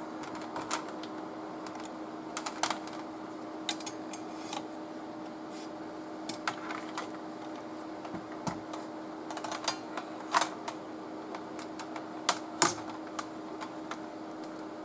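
Scattered light clicks and taps at irregular intervals, the loudest two near the end, over a steady low hum.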